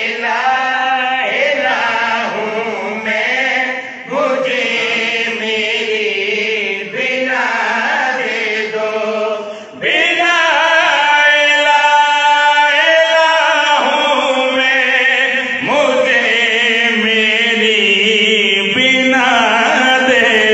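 A man chanting a devotional qasida into a PA microphone, melodic, with long held and gliding notes. It grows louder about ten seconds in.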